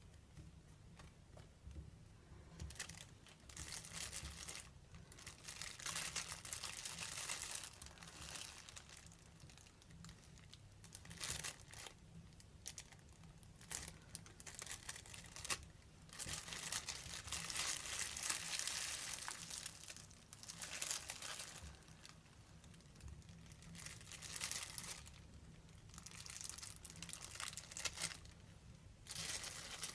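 Thin clear plastic shower cap crinkled and rubbed between the fingers: crinkly, crisp crackling that comes in irregular stretches of a second to several seconds, with quieter pauses between.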